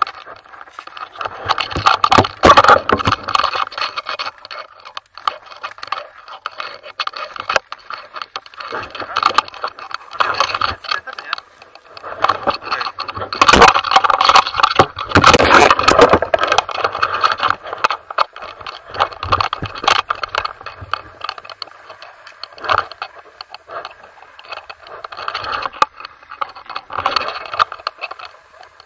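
Skis and poles scraping and swishing through deep powder snow, with frequent rattles, knocks and rubbing on the action camera as it is jostled; loudest in two spells about two seconds in and again about thirteen to sixteen seconds in.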